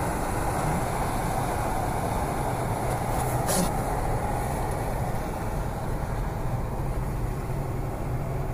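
Road noise inside a moving car's cabin: tyres on the road and the engine running steadily at cruising speed. A brief sharp sound comes about three and a half seconds in.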